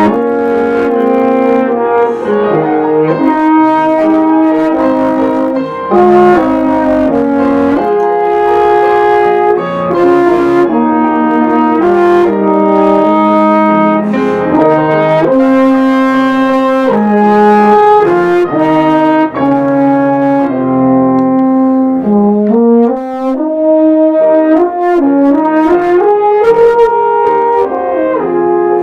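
French horn and euphonium playing a melody in harmony over upright piano accompaniment, in held notes that change about every second or two.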